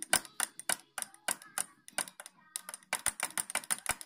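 A run of sharp, irregular metal clicks and knocks, several a second, as the flywheel of a seized two-stroke moped engine is turned by hand with its cylinder removed.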